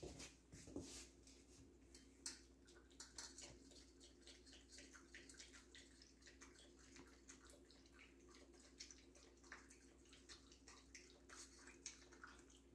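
A puppy lapping water from a stainless steel bowl: faint, quick, irregular wet clicks that go on throughout. A couple of louder knocks in the first second.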